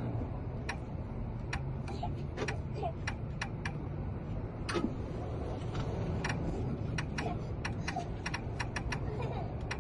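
Scattered light clicks and taps of small hard parts being handled, irregular and about two a second, over a steady low hum.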